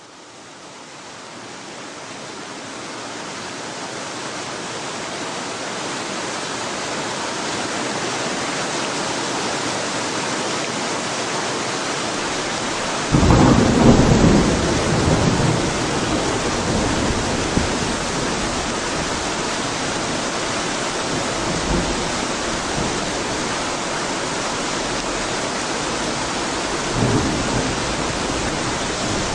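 Steady heavy rain in a thunderstorm, fading in over the first few seconds. About halfway through, a sudden clap of thunder rumbles for several seconds, followed by two fainter rumbles of thunder later on.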